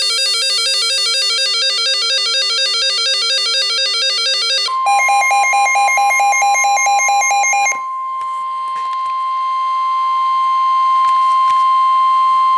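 A fast-alternating pattern of electronic beeping tones. About five seconds in it gives way to the steady, single-pitch warning alarm tone of NOAA Weather Radio, which signals that a warning message is about to be read. For the first few seconds the alarm tone overlaps a pulsing lower tone.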